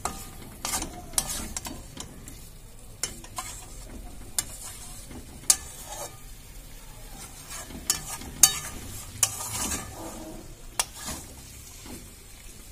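Chicken pieces being stirred in a metal pan, the stirring utensil scraping and knocking against the pan at irregular moments over a soft sizzle.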